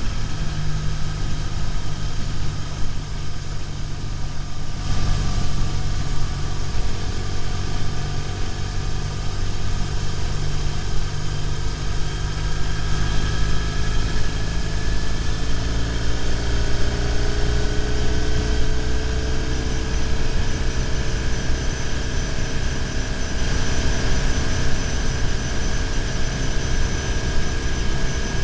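BMW R1150GS boxer-twin engine running steadily at road speed, heard from a bike-mounted camera with wind and road noise. Its tones rise slowly in pitch through the middle stretch.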